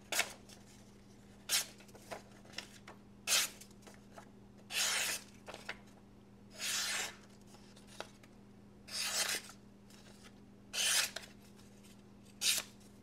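Swiss Tech Leicht D2 fixed-blade knife slicing through paper in repeated strokes: about eight short hissing cuts, one every one and a half to two seconds, a few of them drawn out to about half a second. The clean, easy cuts show a very sharp edge.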